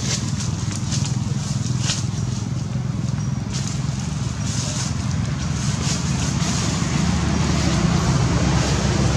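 Steady low rumble with a few faint crackles.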